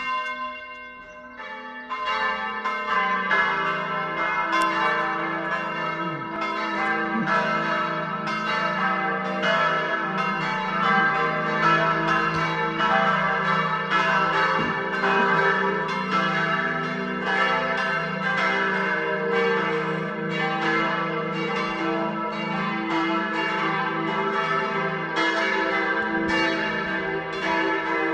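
Full peal of the four church bells of St. Augustinus, tuned e', g', a' and c'', swinging and striking continuously in an overlapping pattern. It is thinner for the first second or two, then grows louder and denser as the other bells join.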